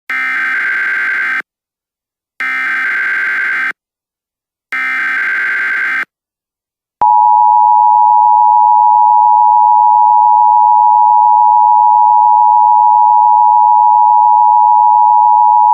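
Emergency Alert System tones: three short, identical bursts of SAME header data, each about a second and a half long with a second's gap between, then after a pause a loud, steady attention tone that starts about seven seconds in.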